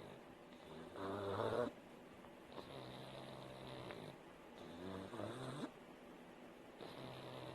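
A sleeping pug snoring, a buzzing snore on each breath, four in a row at a slow, even rhythm. The loudest one comes about a second in.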